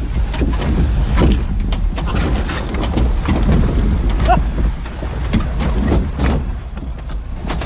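Ford Bronco crawling slowly over a timber obstacle in low range: a low engine and drivetrain rumble with repeated knocks and clunks of the tyres and chassis on the wood, and a short creak about four seconds in.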